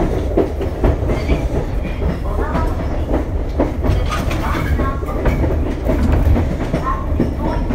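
Running sound of a Tobu 8000-series electric commuter train from inside the car: a steady low rumble with the wheels clicking over rail joints.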